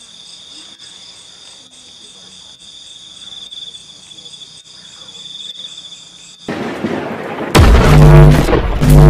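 Crickets trilling steadily. About six and a half seconds in, a rising whoosh cuts in and gives way to a loud intro sting of deep booming hits with music.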